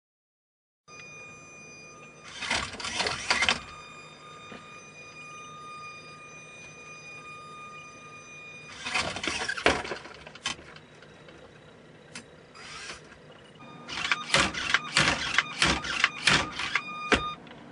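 Small homemade gymnast robot rattling and clanking against its metal bar rig in three bursts as it swings, the last a quick run of about a dozen sharp knocks as it whips around the horizontal bar. A steady faint high whine runs underneath.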